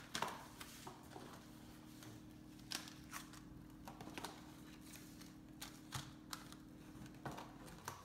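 Fidget spinners being handled and set down one after another: scattered light clicks and clatters. A faint steady hum runs underneath and stops near the end.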